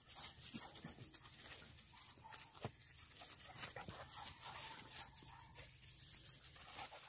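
Two yellow hunting-dog puppies play-fighting in dry grass and fallen leaves: a continual faint scuffling and rustling with small clicks, and faint puppy noises now and then.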